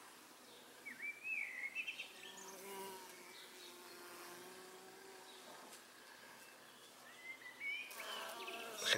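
A honeybee buzzes for about three seconds in the middle, with birds chirping briefly about a second in and again near the end.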